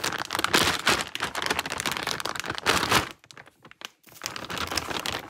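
Plastic packaging crinkling and rustling as a new set of RC car tyres is handled and unwrapped, in two stretches with a short break about three seconds in.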